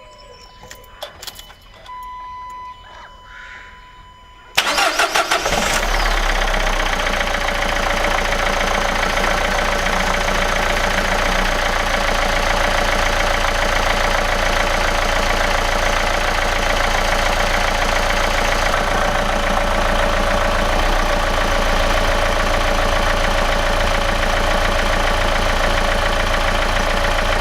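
Renault Clio Mk3's diesel engine being started on a freshly fitted battery. A few clicks and a steady tone come first; about four and a half seconds in the engine cranks briefly, catches and settles into a steady idle. The quick start shows the new battery has cured the flat-battery no-start.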